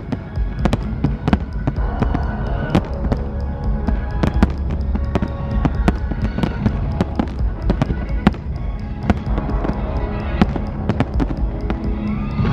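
Fireworks bursting in rapid, irregular bangs and crackles, over loud music from the show's sound system.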